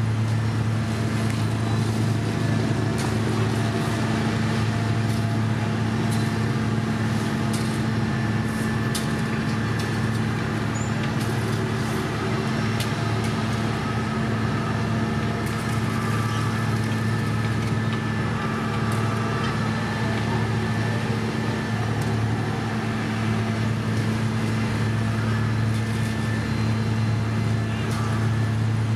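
Diesel engines of an asphalt paver laying gravel and the dump truck feeding its hopper, running together in a steady, unbroken low hum.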